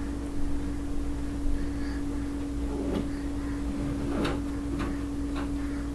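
A few faint, scattered taps and soft knocks from a baby's hands patting and pushing against a cardboard box, over a steady low hum.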